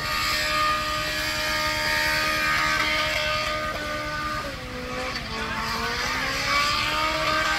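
Drift truck's engine held at high revs while the truck spins donuts, with spinning tyres hissing and squealing. The revs hold steady at first, then dip and climb again about halfway through.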